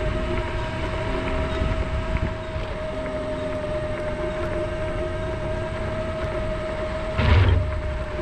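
Electric scooter motor whining at one steady pitch over rumbling road and wind noise while riding. A brief, louder burst of noise comes near the end.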